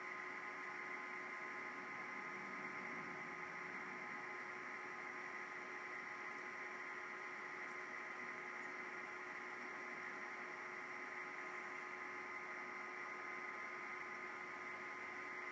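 Steady, faint electrical hum and hiss with several constant whining tones, unchanging throughout; no other sound events.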